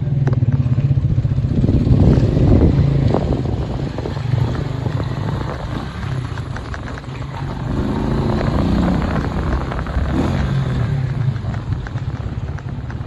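Steady motor vehicle engine and road noise, heard while riding along a road in traffic.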